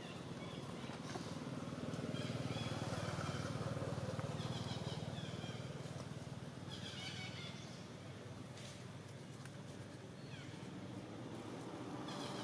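Macaques giving short, high squealing calls, several times, over a steady low hum.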